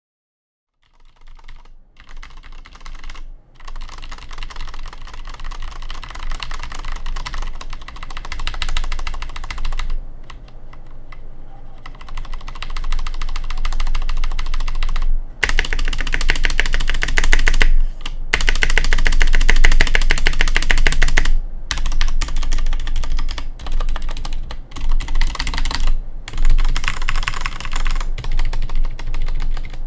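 Fast, continuous typing on a MaiBenBen MKD04-B1 full-size mechanical keyboard with Cherry MX Red linear switches in a metal plate and PBT keycaps: a dense clatter of keystrokes with a few brief pauses. It starts about a second in, fading up, and is louder in the second half.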